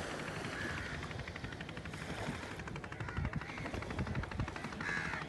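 Boat engine chugging with a fast, even pulse.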